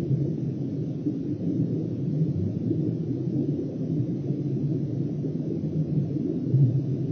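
Ice auger driven by a cordless drill boring a hole through river ice: a steady, low, muffled drone.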